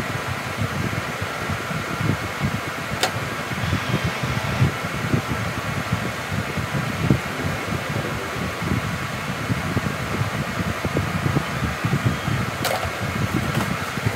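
Electric fan running steadily, a constant whir with an uneven low rumble from its airflow. Two sharp clicks cut through it, one about three seconds in and one near the end.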